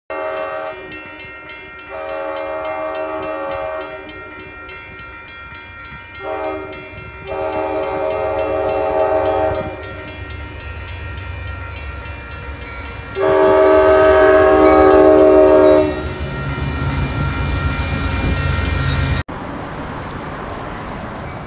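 Locomotive air horn sounding a series of blasts, a chord of several notes: two long blasts, a short one, a long one, then a final long, loud blast, the long-long-short-long pattern of a grade-crossing warning. A low train rumble runs underneath and swells near the end, then the sound cuts abruptly to a steady low rumble.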